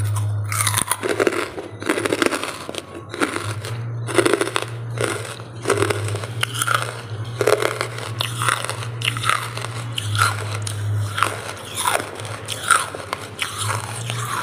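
Soft charcoal being bitten and chewed close to the microphone: a crisp crunch every half second to a second, over a steady low hum.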